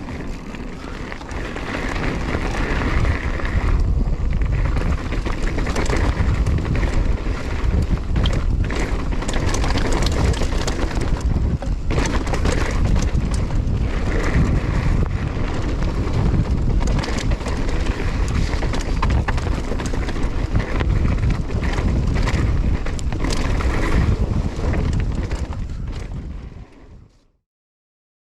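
Wind buffeting a GoPro Hero 9's microphone during a fast ride, a loud, deep rumble with rattles and knocks from the ride mixed in. It cuts off suddenly near the end.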